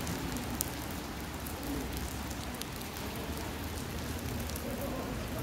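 Steady rain falling, an even hiss with scattered sharp ticks of individual raindrops.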